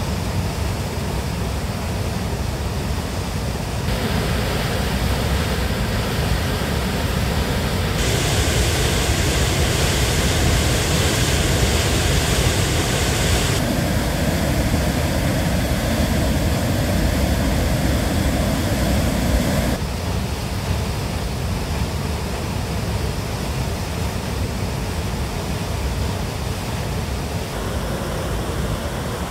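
Little Qualicum Falls in heavy flow: a steady, loud roar of water pouring into a rocky gorge. The tone shifts abruptly a few times and is brightest about a third of the way in.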